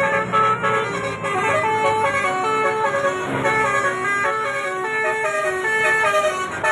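Basuri 'telolet' multi-tone bus horn playing a tune of short, quickly changing notes.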